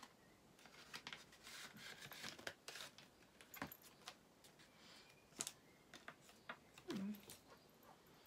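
Faint rustling, crinkling and scattered small clicks of a makeup brush set's packaging being opened by hand.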